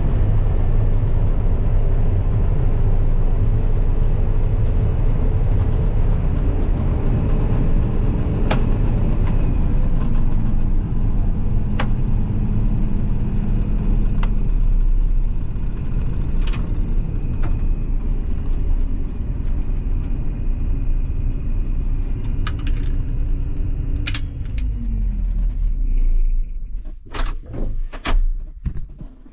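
A combine harvester running with a steady, loud low rumble, with a few sharp clicks. Near the end a tone falls in pitch as the machine slows. The sound then drops and turns choppy for the last few seconds.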